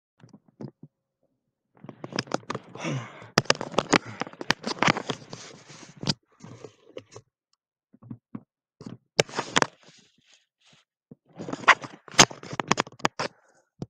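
Rustling, scraping and clicking as over-ear headphones are pulled on over a cap and adjusted, in three bunches of handling noise.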